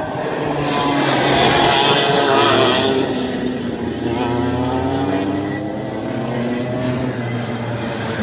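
Two racing kart engines running close together as the karts pass through the corners. Their pitches rise and fall with throttle, and they are loudest about one to three seconds in.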